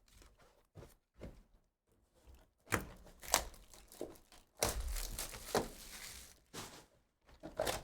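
Trading-card packs' foil wrappers crinkling and tearing, with cards being handled: a couple of sharp crackles a few seconds in, then a longer rustle.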